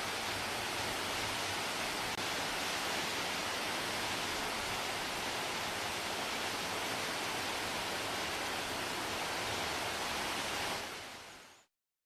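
Steady rush of a waterfall cascading down rock, fading out to silence near the end.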